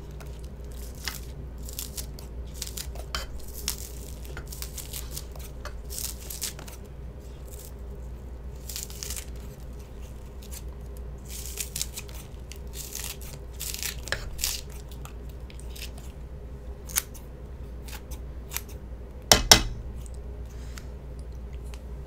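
Kitchen scissors snipping green onion stalks into a pan, a quick irregular series of short crisp cuts, over a steady low hum. One louder knock comes near the end.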